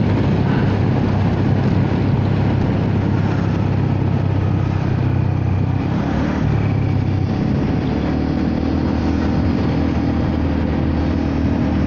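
Honda Forza 300 scooter's big-bore single-cylinder engine running steadily through an aftermarket exhaust while riding at road speed. The rider feels the engine is choked and won't rev out, which he puts down to his self-cut exhaust header.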